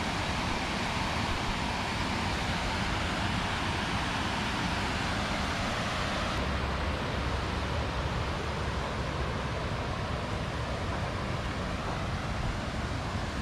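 Steady rushing of river water pouring over a low dam, an even wash of noise with no break.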